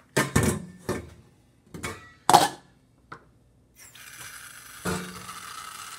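A stainless steel cooking pot being handled at the sink, knocking several times, with the loudest clank about two seconds in. From about four seconds in, tap water runs steadily from the kitchen faucet into the pot.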